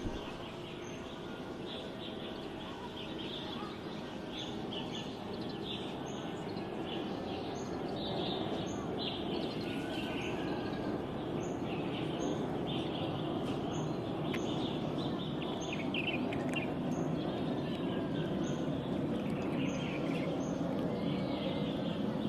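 Small birds chirping over a steady background of outdoor noise, with a short high double chirp repeating every second or two.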